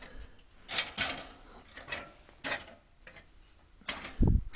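Footsteps scuffing and clicking on a gritty floor, about six short scrapes spread out, then a dull low thump near the end.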